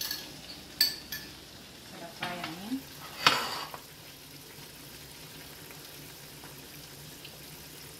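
Kitchen utensil sounds: a metal spoon clinks sharply against cookware a few times, and a louder clatter follows about three seconds in. After that comes soft stirring, as a spoon mixes fried onions and yogurt in a ceramic bowl, over a faint steady hum.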